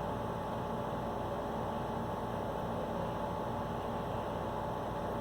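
Steady electrical hum with a constant hiss; no distinct knocks or beats stand out.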